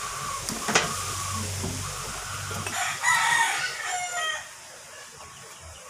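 A rooster crows once, a single long crow of about a second and a half starting about three seconds in. Earlier, a single sharp click is heard.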